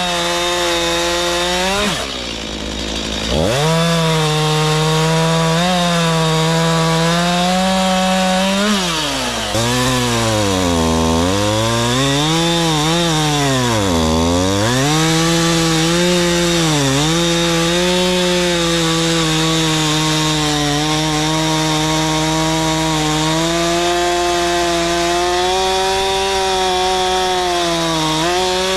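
Two-stroke Stihl chainsaw running near full throttle, its engine note dropping sharply about two seconds in. From about nine to fifteen seconds its revs swoop down and back up several times before settling at a steady high pitch.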